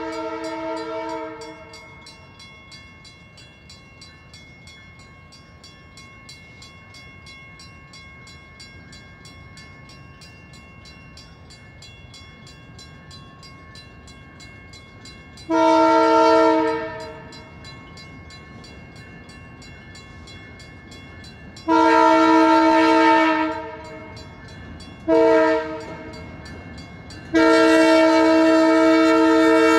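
Canadian Pacific freight locomotive's multi-note air horn sounding the grade-crossing signal: two long blasts, a short one, then a final long blast that is still going at the end. The train is approaching a road crossing.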